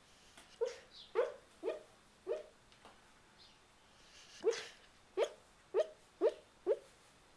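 Boxer dog barking in its sleep while dreaming: short woofs in two runs, four and then five, with a pause of about two seconds between.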